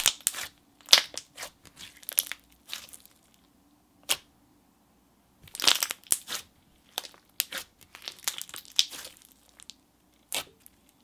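Hands pressing, folding and squishing a thick clear slime full of glitter and iridescent flakes, making irregular short squishes and pops in clusters with brief pauses between.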